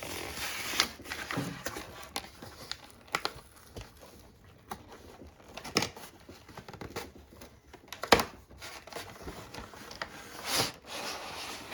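A cardboard collection box and its packaging being handled and opened: rustling and crinkling, with scattered clicks and knocks, the sharpest knock about eight seconds in.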